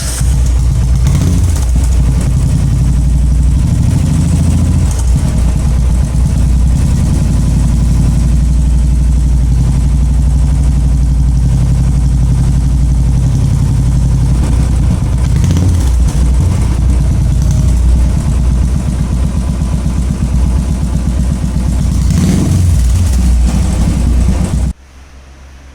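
Royal Enfield motorcycle engine running loud through a cone-shaped aftermarket silencer, idling with a few throttle blips that raise and drop the revs, then cut off suddenly near the end.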